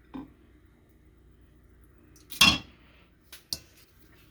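A serving utensil knocking and clinking against a pot and dishes while ground beef is spooned into taco shells: a light knock near the start, one louder clank about two and a half seconds in, and two sharp clicks soon after.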